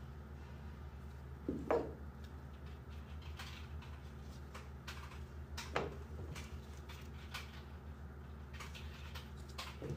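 Plastic housing shells of a Makita DTD154 impact driver clicking and knocking as they are handled and set down, with three louder knocks: about two seconds in, just past the middle, and near the end. A steady low hum runs underneath.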